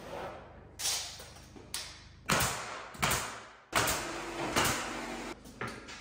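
A series of about seven irregular knocks and thuds from work on wall trim, each ringing briefly in a bare drywalled room.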